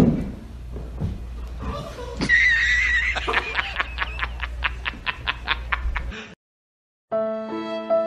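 A thump, then from about two seconds in a rhythmic chirping sound effect, about four chirps a second, over a low hum; it cuts off suddenly, and after a second of silence sad violin music begins.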